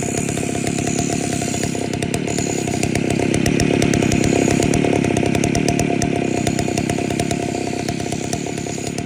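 Large two-stroke chainsaw running steadily at speed, growing a little louder in the middle and easing off slightly near the end.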